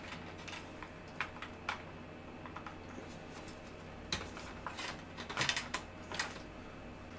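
Scattered light clicks and taps as a SATA cable and its plastic connector are handled and routed inside a sheet-metal PC case, with a cluster of taps a little past the middle. A faint steady hum sits underneath.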